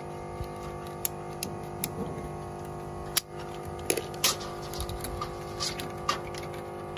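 Irregular light clicks and knocks from work at a roof eave, with two sharper knocks about three and four seconds in, over a steady hum.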